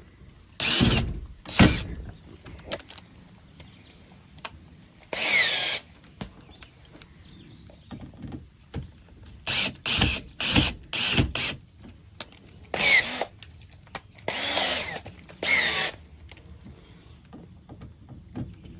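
Power drill driving screws in a series of short trigger bursts, its motor whining up in pitch with several of the pulls, with pauses between them.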